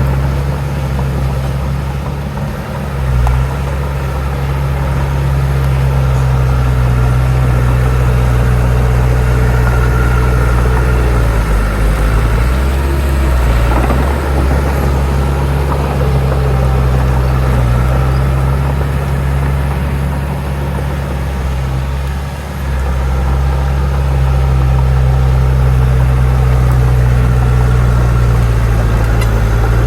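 Heavy diesel engine of earthmoving machinery running steadily under working load, its deep drone shifting briefly a few times as the load changes.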